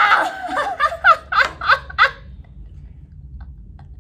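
Laughter: a string of quick, high laughs that dies away about halfway through.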